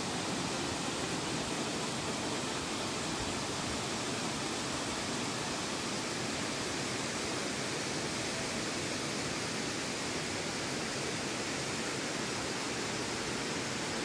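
Steady rushing of a waterfall, water cascading down sloping rock slabs.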